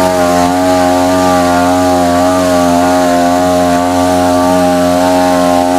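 Rivento RVN-262E backpack power sprayer's 26cc two-stroke engine running at a steady high speed, driving the pump while it sprays.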